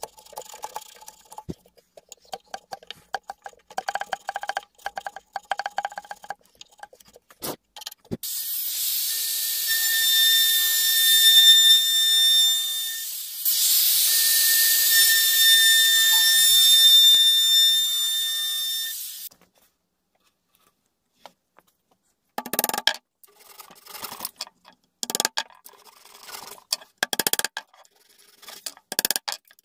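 A chisel scraping wood in short strokes. Then a handheld electric trim router runs at a steady high whine for about ten seconds while cutting the cabinet's wood, pausing briefly midway. After a short quiet, a flush-cut saw cuts a wooden dowel off flush in quick back-and-forth strokes.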